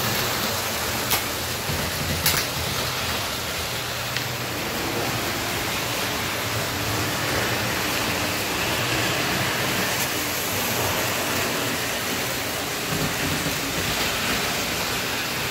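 Lionel O gauge model trains running on three-rail tubular track, a steady rumbling rattle of wheels and motors, with two sharp clicks in the first few seconds.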